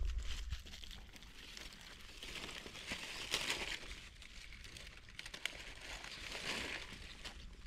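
Dry leaf litter rustling and crackling, in two longer spells of rustling, one around the middle and one near the end, with a few light clicks between.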